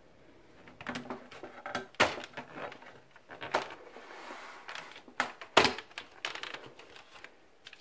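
Front panel of a PC tower case being pulled off by hand: a run of irregular plastic clicks and knocks as the housing pops loose, with the sharpest snaps about two seconds in and again a little past halfway.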